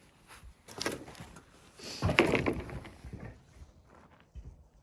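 A short scrape about a second in, then a louder scrape with knocks about two seconds in, followed by a few light clicks, as something wooden is moved or handled.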